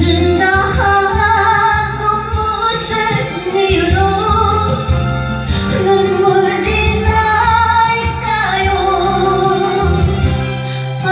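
A woman singing a slow ballad over instrumental backing, holding long notes with vibrato.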